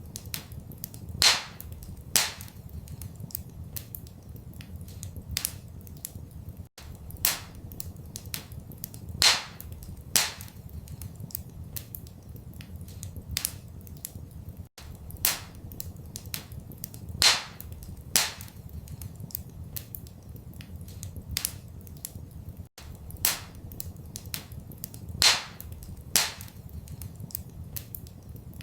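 Wood fire crackling in a fireplace: sharp irregular pops and snaps, a few much louder than the rest, over a low steady rumble. The same run of pops comes round again about every eight seconds, a short looped recording.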